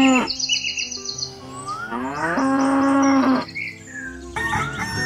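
Cow mooing: one moo ends just after the start, and a second long moo comes about two seconds in, with high chirping above it.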